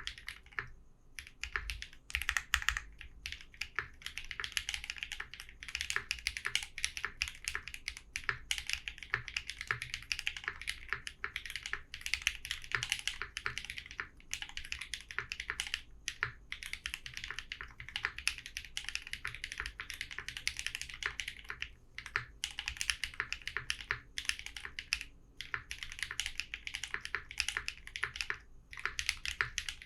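Mechanical keyboard fitted with Thermal and Raed switches, typed on steadily and fast: a dense run of keystroke clicks and clacks, broken by brief pauses a handful of times.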